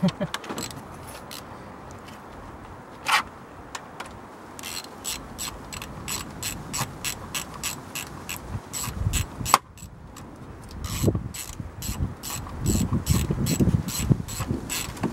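Socket ratchet clicking as it turns a bolt holding a new ignition coil pack: a few clicks at first, then a steady run of about three to four clicks a second from about four seconds in. A sharper knock about ten seconds in.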